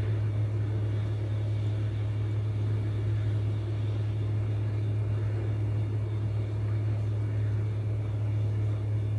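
A steady low hum under a faint, even hiss, unchanging throughout.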